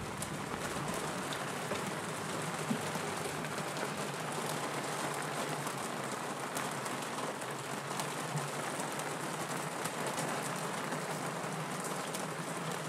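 Steady rain hitting a boat's cabin window: an even hiss with many scattered sharp drop ticks.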